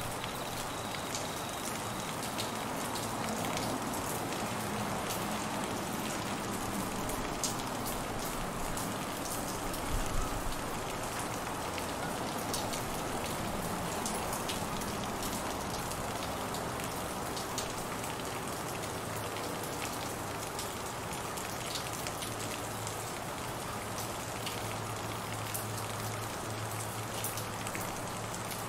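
Heavy monsoon rain falling steadily on trees, grass and floodwater, a constant hiss with scattered sharp taps of nearby drops. A brief low thump about ten seconds in.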